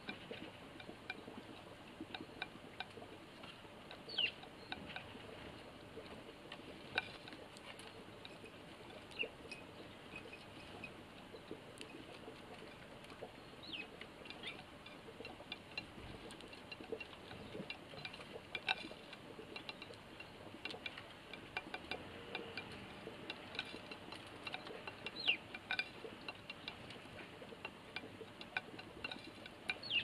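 Eurasian tree sparrows pecking seed from a plate: irregular light taps and clicks, with short high bird chirps scattered through.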